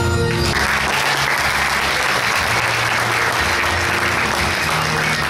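Audience applauding, starting about half a second in, over the performance's background music.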